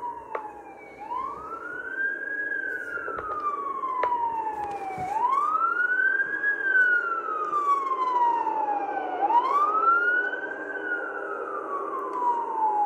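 Fire truck siren in a slow wail, each cycle rising quickly and falling slowly over about four seconds, three cycles in all, heard as a replay of body-cam video through computer speakers.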